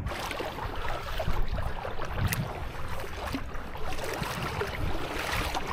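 Water splashing and lapping around a kayak as it is paddled, in uneven swells, with wind noise on the microphone.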